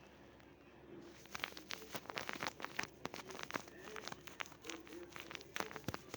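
A quick, irregular run of sharp crackling clicks, sparse at first and then dense from about a second in.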